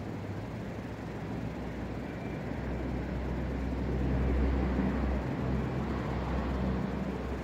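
Wind buffeting the microphone: a low rushing rumble that swells about three seconds in and eases off a little near the end.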